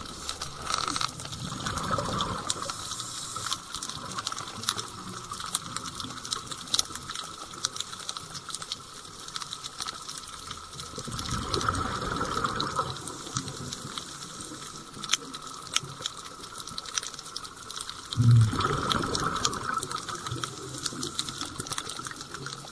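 Scuba diver's exhaled bubbles heard underwater: bursts of bubbling from the regulator three times, several seconds apart, with scattered faint clicks in between.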